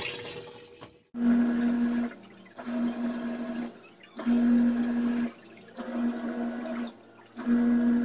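LG top-loading washing machine agitating in the rinse stage of its tub-clean cycle: the motor hums in about five one-second pulses with short pauses between, churning the water in the tub. Water swishing fades out in the first second, before the pulses begin.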